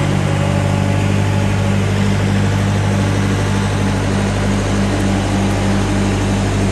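Engine of a mobile boat hoist (travel lift) running steadily with a boat in its slings: a loud, deep hum with an even throb.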